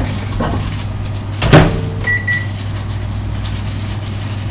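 Microwave oven door shut with a single thump about a second and a half in, followed half a second later by a short electronic beep from its keypad, over a steady low hum.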